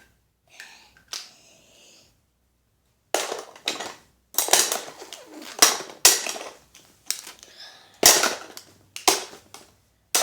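A person's breath or voice in a run of sudden, noisy bursts, about one to two a second, starting about three seconds in, each with a sharp start and quick fade.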